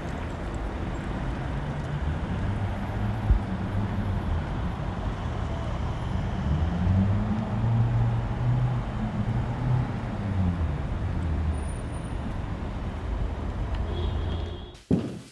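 Low steady rumble of a car engine and traffic, with a low engine note that rises and falls in the middle and a sharp click a little after three seconds. It cuts off suddenly near the end, followed by a thud.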